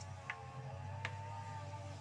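Motorised grass cutter's engine running steadily, its pitch wavering slightly. Two light clicks come about a third of a second and about a second in.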